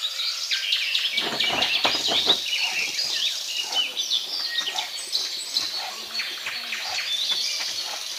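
Small birds chirping and twittering busily, many short overlapping calls. A few low thumps come about one to two seconds in.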